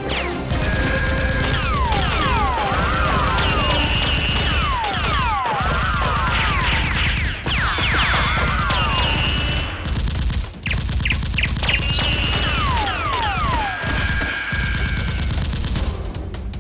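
Sustained rapid gunfire, like machine-gun fusillade sound effects, laid over a Nerf battle. It is mixed with many falling, whistling glides, like ricochets or blaster zaps, and a few warbling tones.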